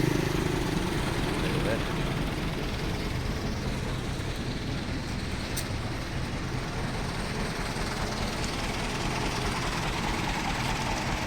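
A motor running steadily with a low hum and no change in pace.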